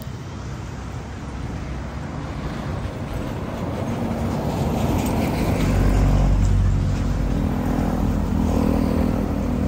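Traffic on a highway: a large diesel box truck approaches and passes close by, its low engine rumble building to its loudest about six seconds in. A car passes close by near the end.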